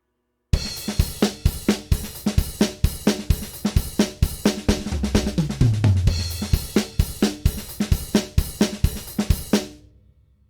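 Sampled drum kit from the Stigmatized Drummer Kontakt library playing a steady groove of kick, snare, hi-hat and cymbals at about three hits a second. It starts about half a second in and stops near the end, the cymbals ringing out briefly.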